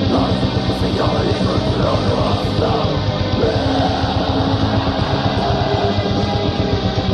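Heavy metal music: distorted electric guitars over fast, dense drumming.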